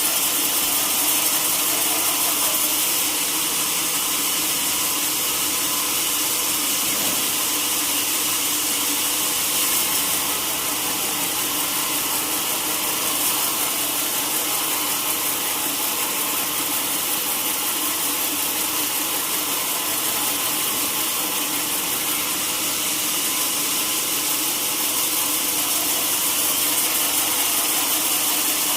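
Sawmill saw running steadily through teak wood: a constant, even hiss with a faint hum underneath that holds at the same level throughout.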